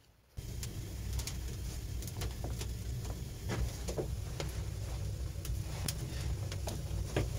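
Wood fire crackling and popping in a mud-plastered fireplace, with irregular sharp snaps over a steady low rumble. It starts abruptly about half a second in.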